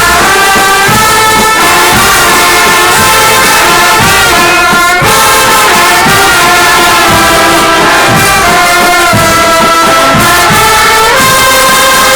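Brass band playing loudly: trumpets and trombones holding sustained chords that change every second or two, over repeated low drum hits.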